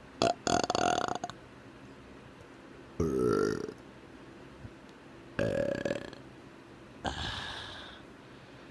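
A man burping on purpose: a series of separate belches, each under a second long, coming about every two seconds.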